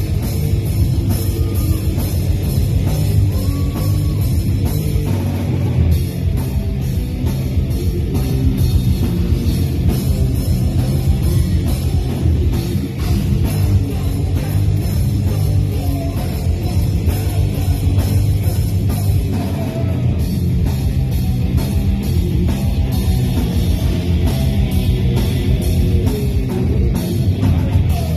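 Loud live metal band playing: bass guitar and a drum kit driving a fast, dense rhythm with steady, rapid drum hits.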